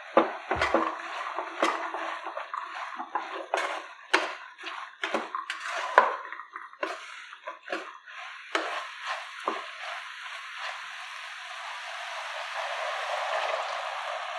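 Wooden spatula stirring soya chunks and vegetables in a pressure cooker pot, with repeated clicks and scrapes over a steady sizzle. The stirring stops after about ten seconds, and a steadier hiss builds as water is poured into the pot.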